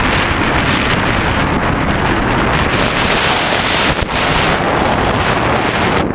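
Loud, steady wind buffeting the microphone of a camera carried along at speed: a rushing noise with no pitch.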